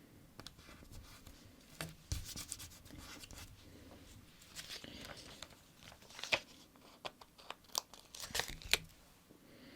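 Paper stickers being peeled from their backing sheet and rubbed down onto a sticker-book page: papery rustling and scraping broken by sharp little clicks and taps, with the loudest snaps about six seconds in and near the end.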